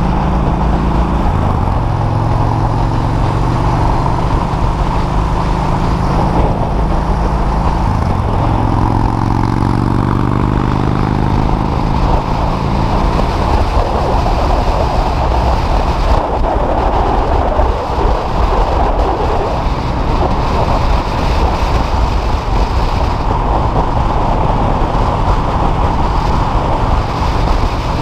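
Sport motorcycle riding at speed with its engine running, heard from the rider's seat with wind rushing over the microphone. The engine note climbs for a few seconds about a third of the way in, then the wind rush takes over.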